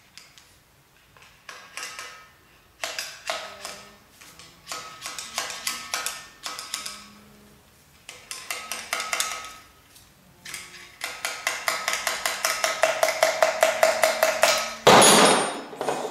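A long steel rod worked rapidly back and forth inside the hollow journal of a Rolls-Royce Phantom III crankshaft, scraping out the packed sludge trap, with quick metallic clicks and a ringing tone. The strokes come in several runs, the longest near the end at about five a second, followed by one louder knock.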